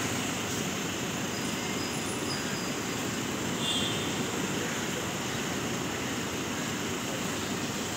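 Steady city street background noise: a constant, even hum of traffic.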